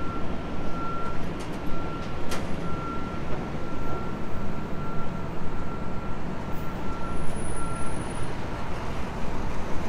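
City street traffic noise with a heavy vehicle's engine rumbling, and a repeating high electronic beep that pulses on and off throughout. A single sharp click sounds about two and a half seconds in.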